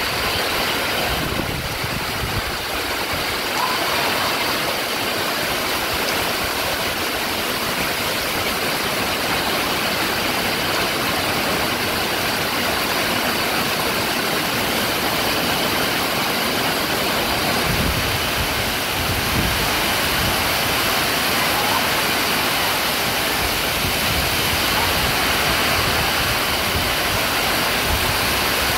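Heavy rain pouring down in a strong windstorm, a steady dense rush of water and wind.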